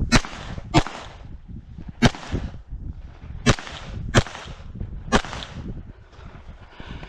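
Six pistol shots fired at a shooting stage, spaced unevenly over about five seconds, with a quick pair near the start and another a little past halfway; each is a sharp crack with a short echo.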